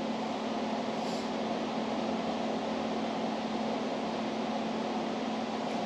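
Steady hum and hiss of a ventilation or air-conditioning fan, with no impact or other event standing out.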